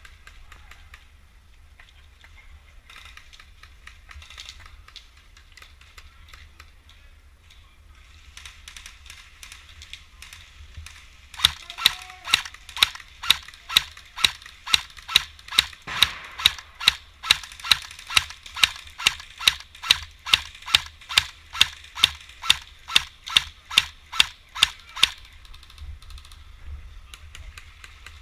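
An airsoft gun firing a long string of evenly spaced single shots, about three a second, for over ten seconds partway through.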